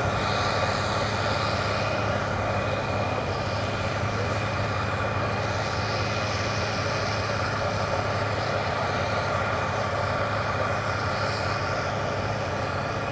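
Large four-wheel-drive tractor's diesel engine running steadily under load while it pulls a SWECO 900 drag disc harrow through the soil, with a thin steady high whine over the engine drone.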